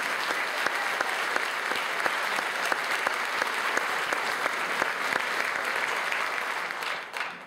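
Theatre audience applauding steadily after a song, a dense clapping that dies away near the end.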